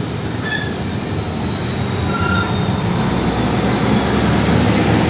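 Hino diesel fuel tanker trucks driving past on a road: steady engine and tyre noise that grows louder as a truck comes close.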